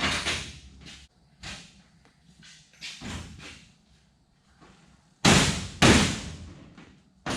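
A few scattered knocks and clatters, then two loud sharp bangs about half a second apart, each dying away, and one more short knock near the end.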